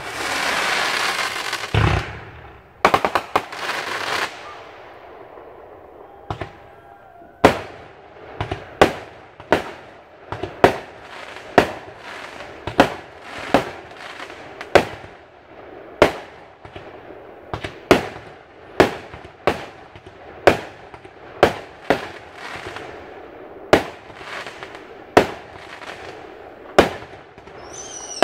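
Aerial fireworks going off: a dense crackling burst with a low boom at the start, more crackle a few seconds in, then a steady run of sharp bangs about one a second.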